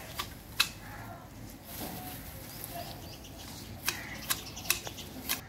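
Manual hedge shears snipping leafy shrub branches, each cut a sharp click of the blades closing. Two snips about half a second apart near the start, then four more in quick succession in the last second and a half.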